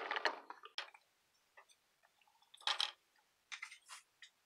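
Chopped bottle gourd cubes being tipped into a pressure cooker onto dry lentils: a few soft taps and a short patter of pieces landing, the loudest a little under three seconds in, then a few light ticks.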